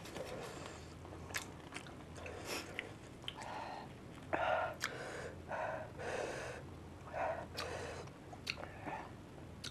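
Close chewing of fuchka (pani puri) stuffed with green chilies: crisp puffed shells crunching, with a string of short clicks and mouth sounds.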